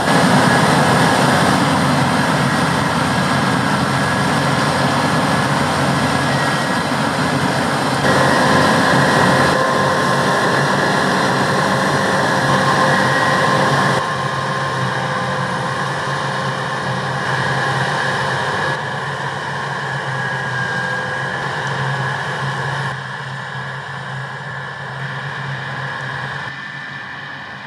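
Claas Lexion 7700 combine harvester running under load while harvesting, a steady engine drone with several high machine whines over it. The sound jumps in level several times and grows quieter near the end.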